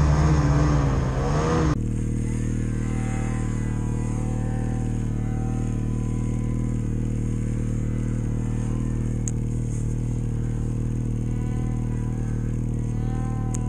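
Ski-Doo Summit 800 two-stroke snowmobile engine revving up and down, then cut off sharply about two seconds in and replaced by a steady idle. Faint engine notes rise and fall above the idle, from other snowmobiles in the distance.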